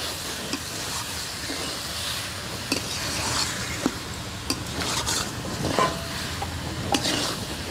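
Spatula stirring and scraping eggs and potatoes in spice paste around a metal kadai, over a steady frying sizzle, with scattered clinks of the spatula against the pan.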